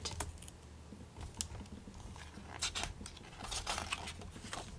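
Paper rustling and crackling as a page of a paperback comic book is gripped and turned by hand, in a few scattered soft crackles that bunch together in the second half.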